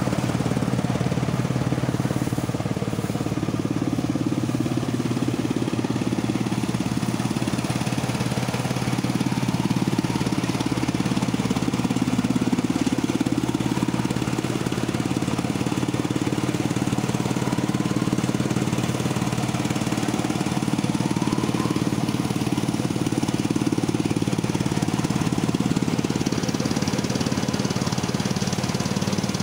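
Tractor-driven threshing machine running steadily under load with a constant low hum, as dry crop stalks are fed into its drum and chaff is blown out.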